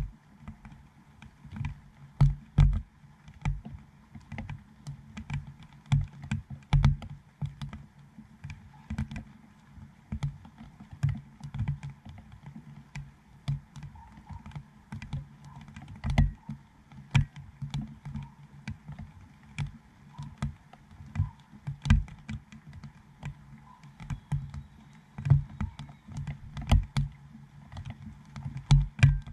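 Raindrops striking the plastic dome housing of a GoPro Hero7: irregular sharp taps, a few each second, some heavier ones landing with a dull thud.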